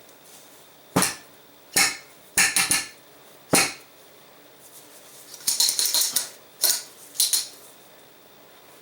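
Metal suppressor parts clinking and knocking as they are handled during reassembly: a series of separate sharp clinks, with a quicker rattle of several clinks about five and a half seconds in.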